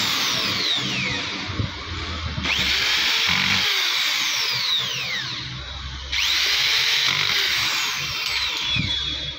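Electric drill-driver driving screws into a marble cutter's plastic motor housing in three runs, restarting sharply about two and a half and six seconds in, its whine falling in pitch during each run.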